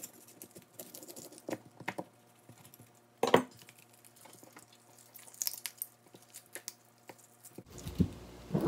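Chef's knife cutting through boiled pig's trotters and clicking on a plastic cutting board, with one louder knock about three seconds in, then scattered soft taps as the cut pieces are handled on the board.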